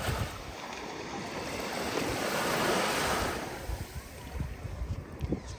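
Ocean waves breaking and washing up the shore: a wave swells and surges about two seconds in, then recedes and fades before the next one. Wind buffets the microphone underneath.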